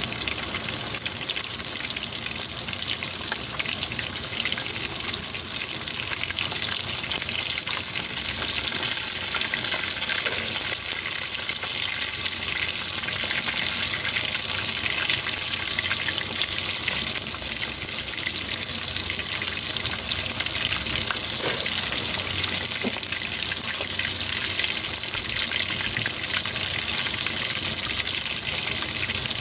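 Floured black sea bream trimmings deep-frying in hot oil: a steady, dense sizzling hiss with fine crackles.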